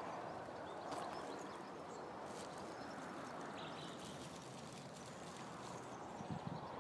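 Faint outdoor ambience: a steady, even rush of background noise with a few faint bird chirps over it.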